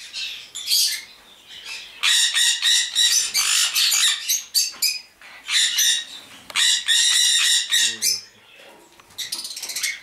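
African grey parrot giving loud, harsh squawks in several bouts, with quieter gaps between them.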